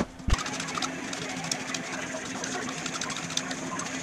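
Metal lathe running with no cut, a steady mechanical hum with fine rapid ticking, and a single knock just after the start as the tool is backed off.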